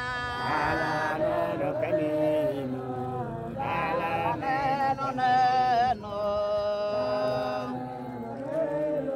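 A group of men and women singing a chant-like song together, with several long held notes.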